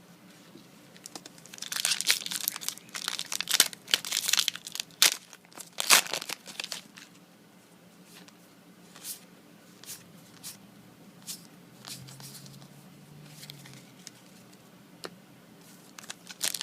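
A foil booster pack wrapper crinkling and being torn open, in dense bursts through the first half, then only occasional soft clicks and rustles.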